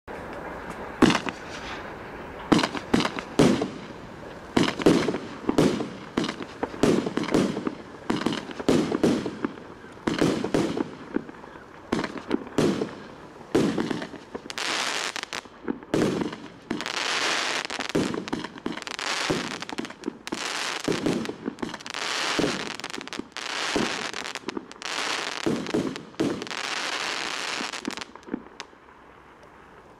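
A fireworks battery firing shot after shot. For the first half it gives sharp, deep bangs about one to two a second. Then come longer, higher crackling bursts about a second long, one every second and a half or so, stopping near the end.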